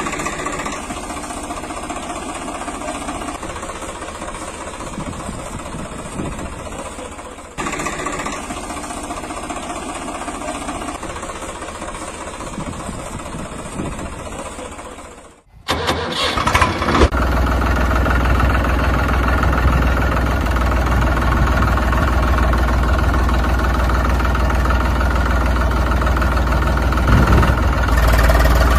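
Vehicle engine running steadily. About halfway through it cuts out almost to silence, then starts again and runs louder with a deep, steady low hum.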